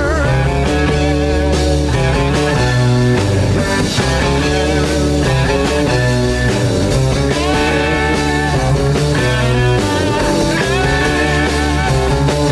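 Live rock band playing psychedelic blues-rock: electric guitar lines with bent notes over a steady bass and drum backing.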